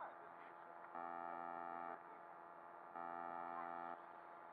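Electronic alarm beeping: a steady, buzzy tone lasting about a second, sounding twice, two seconds apart.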